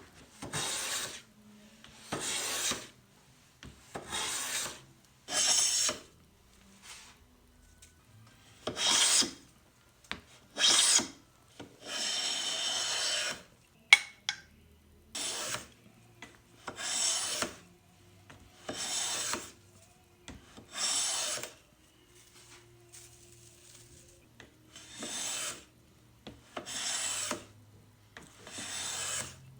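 Hand bench plane shaving a glued-up board of mixed woods: a series of separate strokes about every two seconds, each a short hiss of the blade cutting a shaving. One longer stroke comes near the middle, followed by a sharp click.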